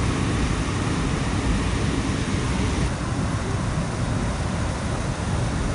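Steady rushing of white water pouring over the rock ledges and rapids of a waterfall, heavy in the low range. It turns a little duller about three seconds in.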